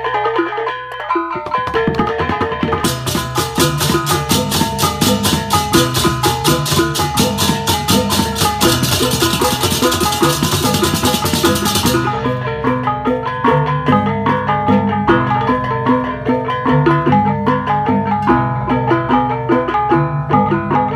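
Percussion music of tuned metal mallet instruments and drums, like Balinese gamelan. From about three seconds in to about twelve seconds, a dense run of fast cymbal strokes plays over it.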